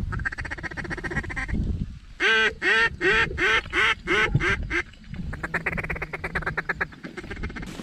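Mallard quacking: a loud run of about nine quacks, each dropping in pitch, from about two seconds in to about five seconds in. A quieter, fast, even chatter comes before and after it.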